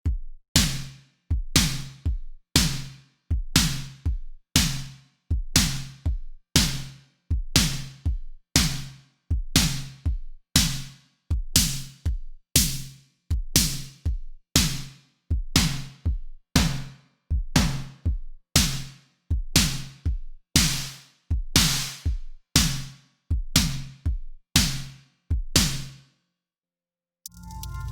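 AAS Ultra Analog VA-3 synthesizer plugin playing a percussive, drum-machine-like patch: short hits at a steady rate of about three every two seconds, each dying away quickly. The hits stop near the end, and a sustained synth chord comes in just before the close.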